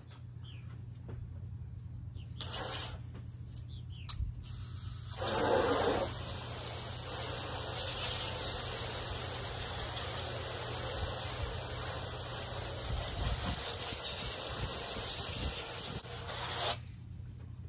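Garden hose spray nozzle spraying water onto window glass. A short spurt comes about two and a half seconds in and a louder one around five seconds, then a steady hiss of spray that cuts off about a second before the end.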